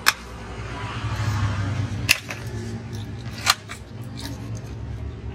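Sharp metallic clicks from a GI model 300 break-barrel air rifle as it is handled and its barrel is broken open at the breech. There are three clear clicks, roughly one and a half to two seconds apart, with a few fainter ones after, over a steady low hum.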